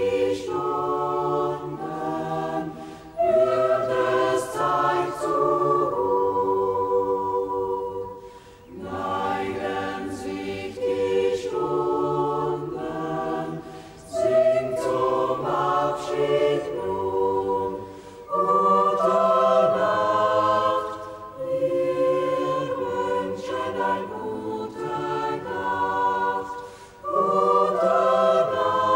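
Mixed choir of men's and women's voices singing in sustained phrases of a few seconds each, with short breaks between phrases.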